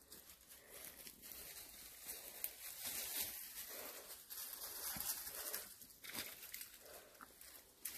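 Faint, uneven rustling and crackling of dry leaves and twigs underfoot on a forest floor.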